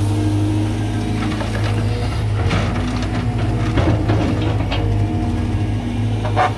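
Caterpillar 320 GC excavator's diesel engine running steadily, with a run of metallic knocks and clanks in the middle and one more near the end.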